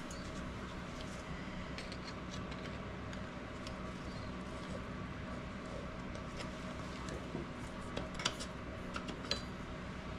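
Small metallic clicks and clinks as old brake pads are worked out of a motorcycle's Brembo front brake caliper, the two sharpest about eight and nine seconds in, over a steady low hum.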